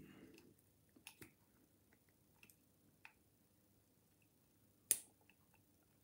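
Picking tools working inside a Chubb Cruiser 5-lever padlock: a few faint, scattered metallic clicks, then one sharper click about five seconds in.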